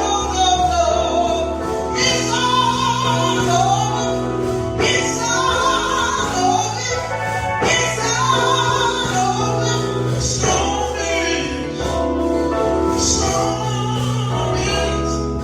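Gospel song with a woman's lead vocal over sustained instrumental accompaniment.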